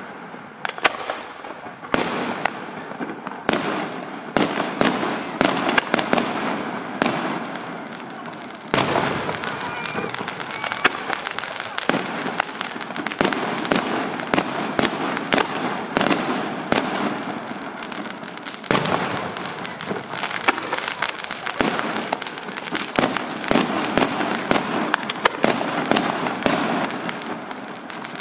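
Aerial fireworks display: shells bursting in a rapid barrage of sharp bangs, two or three a second, over a continuous noisy din.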